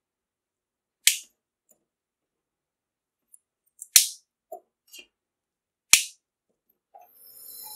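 Fresh asparagus spears snapped by hand, three crisp snaps about two seconds apart, with soft handling sounds of the spears between them. A steady hiss starts near the end.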